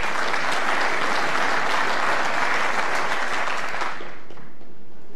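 Snooker audience applauding, dying away after about four seconds.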